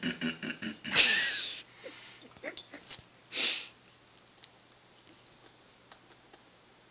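Corgi snorting and huffing while nudging for more petting: a quick run of short huffs, a loud snort about a second in, and another shorter snort around three and a half seconds in.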